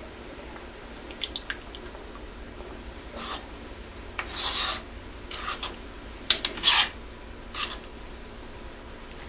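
A spoon scraping and rubbing against the inside of an earthenware donabe pot in short strokes while soy-milk broth is stirred. A few light clicks come a little over a second in, then about five scrapes follow.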